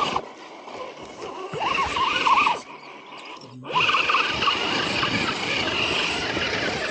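RC scale crawler's electric motor and geared drivetrain whining as the truck climbs over roots and dirt. There is a short burst with rising and falling pitch about a second and a half in, a brief lull, then steady driving from just under four seconds in.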